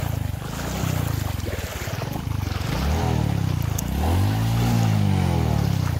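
Small scooter engine running in a low, throbbing pulse, then revved up and back down twice, briefly about three seconds in and longer from about four to six seconds, as the scooter is pushed through floodwater, with the swish of moving water underneath.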